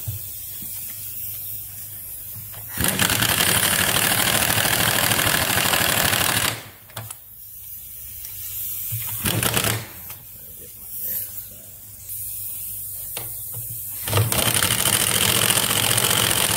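Impact driver hammering lag screws through a steel angle bracket into a wooden post. One long run of about four seconds, a brief burst a few seconds later, and another run of a couple of seconds near the end.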